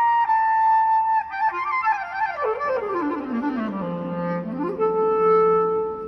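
Solo clarinet: a held high note, then a fast run down to a low note in its bottom register, which is held and then leaps back up to a sustained middle note near the end. The notes ring on and overlap in the church's reverberant space.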